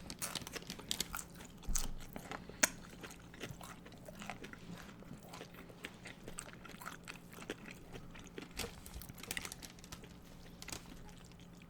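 Crunching and chewing of loaded tortilla chips: scattered sharp crunches, densest in the first few seconds, then quieter chewing, over a faint steady hum.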